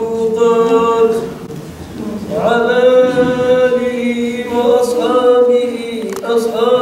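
A man's voice chanting a prayer of blessings on the Prophet Muhammad into a microphone, in long held notes that slide and waver. The chant breaks off about one and a half seconds in and starts again a second later.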